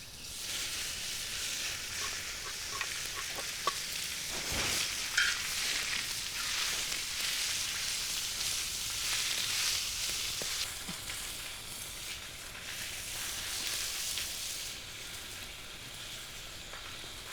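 Food sizzling as it fries in a pan, a steady hiss, with a few light clicks and a sharper knock about five seconds in.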